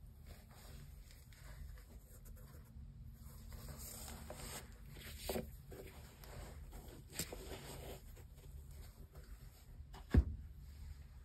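Faint handling noise of gloved hands rubbing and turning a suede-and-ripstop sneaker, with a few small clicks and one sharp thump near the end as the shoes meet the table.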